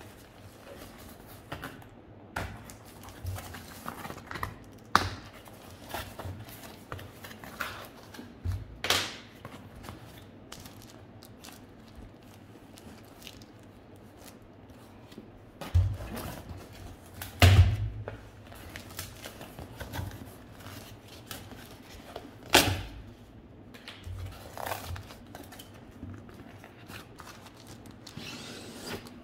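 Cardboard shipping box being unpacked by hand: packing tape and cardboard tearing and scraping in short bursts, with scattered knocks and thumps as the box is handled. The loudest thumps come around the middle.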